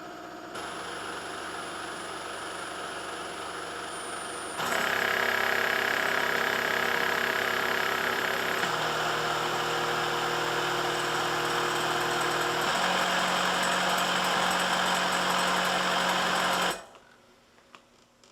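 Newport HT70 transport ventilator running its automatic circuit check, pushing air through the open patient circuit at several flow rates in turn. It makes a steady motor hum with rushing air that steps up in loudness about half a second in and again about four and a half seconds in, shifts pitch twice more, and cuts off suddenly near the end.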